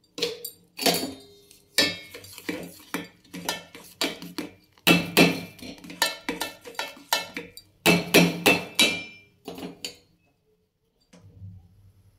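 Steel spoon stirring and knocking against a stainless steel pan of tea, an irregular run of metal clinks several times a second that stops near the end.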